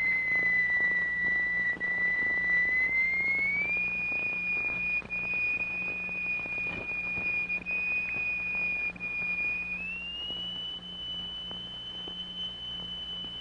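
A steady pure electronic tone near 2 kHz, the note that sets a plate vibrating into a cymatic standing-wave figure. It slides up to a higher note a little after three seconds in and again about ten seconds in, over a low hum.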